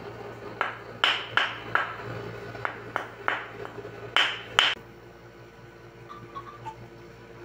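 A curved wooden stick struck against a man's bare upper back and neck: about ten sharp, irregular taps over four seconds, then stopping.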